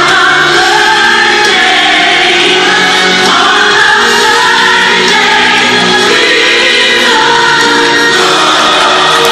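Gospel choir music, with several voices holding long, gliding notes over the accompaniment.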